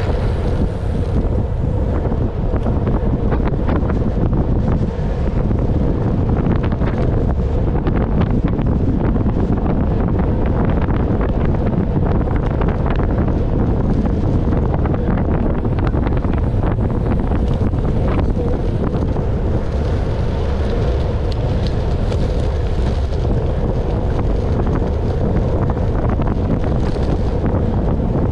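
Loud, steady wind noise buffeting the microphone, with a faint steady hum underneath.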